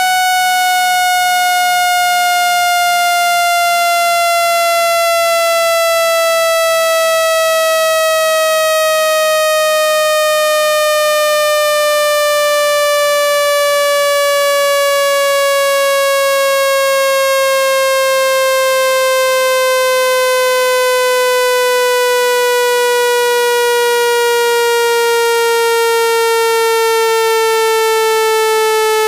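Electronic speaker-cleaning test tone, a steady buzzy tone rich in overtones, gliding slowly and evenly down in pitch. It is a frequency sweep meant to shake water and dust out of a phone speaker.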